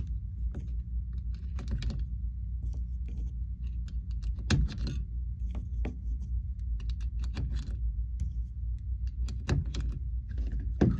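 Irregular small metallic clicks and clacks, with a sharper one about halfway: 9mm cartridges being pressed one by one into a Browning Hi-Power pistol magazine before a test fire. A steady low hum runs underneath.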